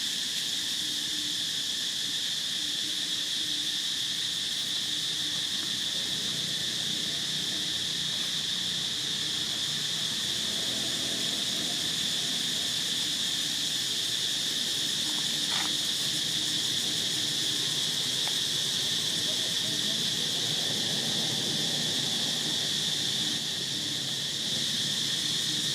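Steady, high-pitched drone of insects calling without a break. A faint low murmur sits underneath through the second half.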